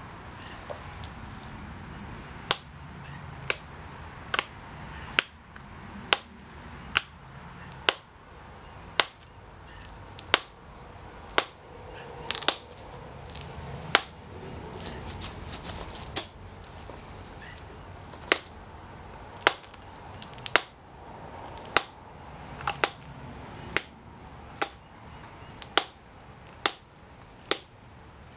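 Pressure flaking a Texas tab chert blade edge with a copper-tipped pressure flaker: sharp snaps as small flakes pop off the edge, about one a second, some two dozen in all, with faint rustling of gloves and leather between them.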